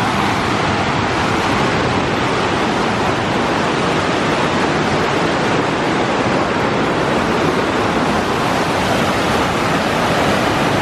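Waterfall: a loud, steady rush of falling water heard close up.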